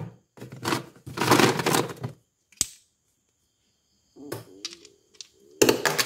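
Hard-frozen ice cubes clattering and knocking against each other and a plastic ice tray as a hand shifts them around a freezer shelf. The clatter comes in several short bursts, with a single sharp click about two and a half seconds in.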